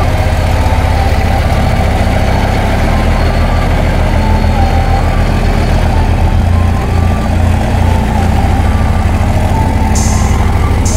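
Rail dragster's engine idling with a steady low rumble that wavers slightly as the car creeps forward, with a short hiss near the end.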